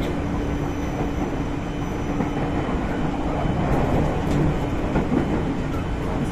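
Tokyu 8500 series electric multiple unit motor car running on the line, heard inside the passenger car: a steady rumble of wheels and running gear. A steady hum fades out about two and a half seconds in, and a few light clicks come through.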